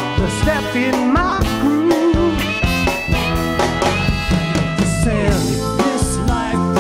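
Live dance band playing an upbeat number: drum kit and electric bass keep the beat while trumpet and saxophone hold long notes that fall away together a little past the middle, with a woman singing lead.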